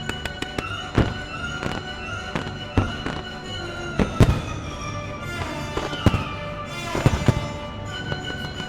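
Aerial firework shells bursting in a series of sharp bangs, the heaviest about four seconds in and a quick cluster around seven seconds, with crackling between them, over music.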